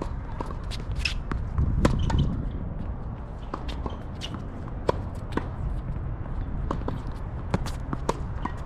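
Tennis play on a hard court: irregular sharp knocks and scuffs of ball hits, bounces and footsteps. Underneath runs a low rumble of wind on the microphone.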